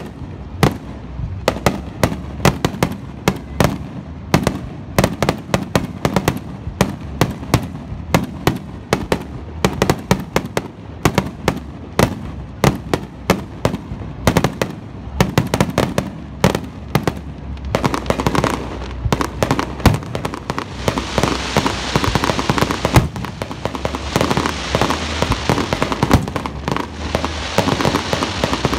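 Fireworks display, with aerial shells bursting in quick, irregular succession, many bangs every second. About two-thirds of the way through, a dense crackling hiss joins the bangs and continues under them.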